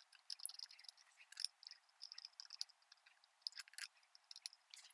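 Faint, scattered small metallic clicks and light scrapes of lug nuts being started by hand onto a tractor wheel's studs.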